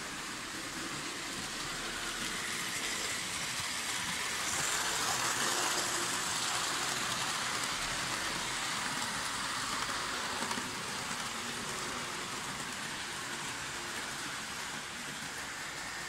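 Märklin model electric railcar running on metal track: a steady rolling hiss and rumble of the wheels and motor, growing louder from about four seconds in and easing off again after about ten seconds.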